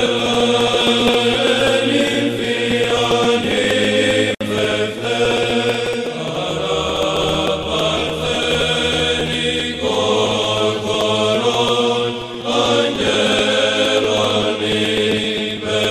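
Background music of chanting voices, held notes sung over a steady low drone.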